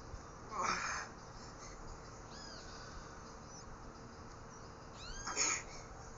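Two short, forceful exhales of a lifter straining through barbell curl reps, about four and a half seconds apart, with a few faint high chirps in between.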